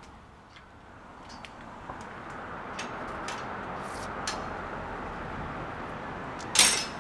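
City street ambience with a steady wash of traffic noise that swells in over the first couple of seconds, with scattered light clicks and a short, loud, sharp noise near the end.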